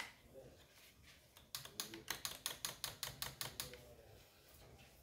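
A quick run of about a dozen light, evenly spaced clicks, about six a second, lasting about two seconds, from hand work on a chainsaw being assembled.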